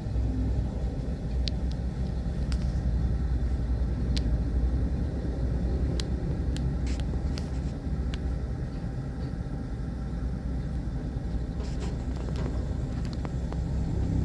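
Excavator's diesel engine running steadily with a low rumble, with short sharp knocks now and then.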